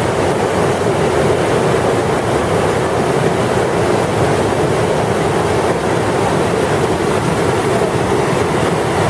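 Whitewater of a river slalom course rushing steadily.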